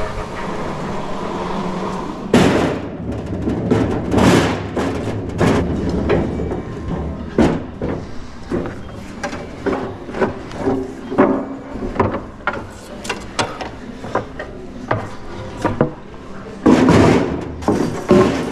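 Wooden 2x4 boards knocking and clattering against each other and the rack, a long run of sharp irregular knocks, as they are pulled from a lumber rack and stacked onto a metal flatbed cart.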